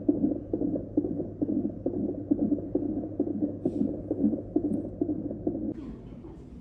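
Fetal heartbeat from a CTG monitor's Doppler speaker: a fast, even whooshing pulse at about two and a half beats a second, in the normal range for a baby's heart rate. It stops near the end.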